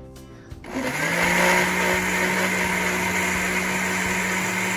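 Countertop blender switched on just under a second in, its motor spinning up and then running steadily as it grinds whole garlic cloves into mayonnaise, oil and lemon juice for a white sauce.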